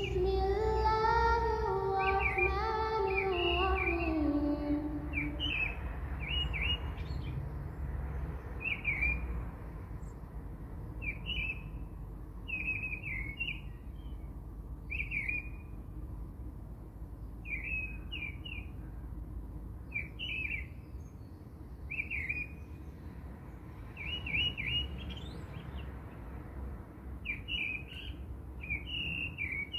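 A bird chirping: short, high two- or three-note chirps repeated about every one to two seconds, over a low steady hum. In the first five seconds a stepped tone descends in pitch.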